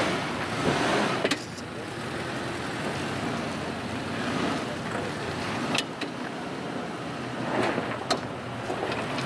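Suzuki Jimny 4WD engine running as the vehicle crawls slowly through a deep dirt rut, with a few sharp clicks and knocks along the way.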